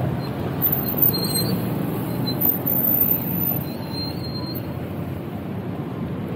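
Wind rushing over the microphone of a bicycle-mounted camera while riding, with tyre and road rumble. A few louder gusts come in the first three seconds, and it eases slightly after about four seconds.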